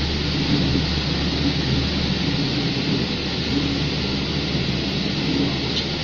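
Ginger washing machine running: a steady low motor hum under a constant hiss of spraying water.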